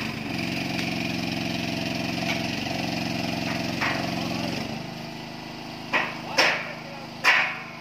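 A small engine running steadily, falling away about five seconds in. Near the end come three short, sharp noises.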